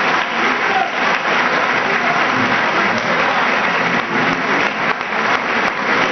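A large crowd of seated diners applauding steadily: a dense, even patter of many hands clapping.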